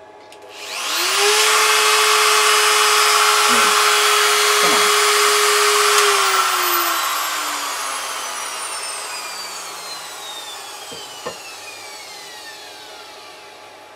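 Kress router motor, used as a CNC spindle, running free at about 24,000 RPM. It winds up quickly to a loud, steady whine over a harsh, high rushing noise. About six seconds in it is switched off and spins down, the whine falling slowly in pitch and fading.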